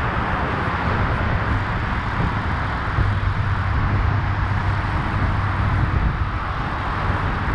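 Steady rushing noise of wind and road traffic, with a low engine-like hum that swells in the middle seconds.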